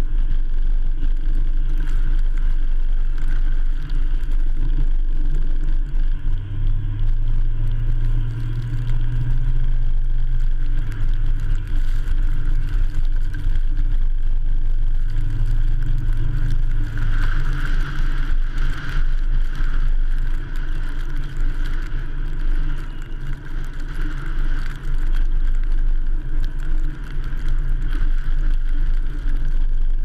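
Ford F-150 pickup truck driving on a snow-packed road: a steady low engine and tyre rumble, with a deeper engine hum that swells for about ten seconds in the middle.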